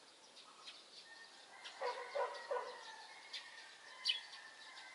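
A rooster crowing about two seconds in, its call broken into three short notes. A small bird chirps briefly near the end.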